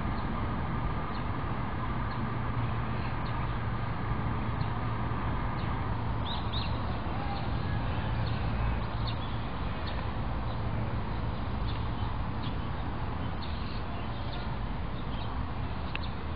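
Steady outdoor background noise with a low hum, and short high chirps scattered through it, thickest about six to seven seconds in.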